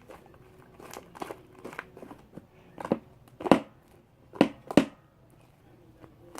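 Hands kneading and stretching sticky shaving-cream slime, giving irregular squishy crackles and pops, loudest around the middle.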